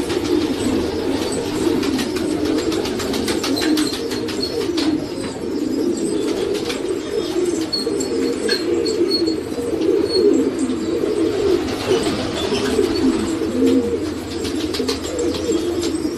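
A flock of black Iranian (Zagh) pigeons cooing together in a steady, dense chorus of overlapping calls, with scattered clicks and occasional wing flaps through the middle.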